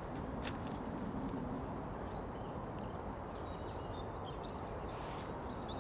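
Steady low outdoor background noise, with faint short high-pitched bird chirps, mostly in the second half, and a couple of faint clicks near the start.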